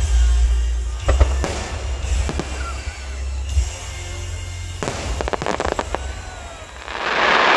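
Aerial fireworks shells bursting overhead in quick succession, with sharp bangs and crackles over a low rumble. A dense hiss swells near the end.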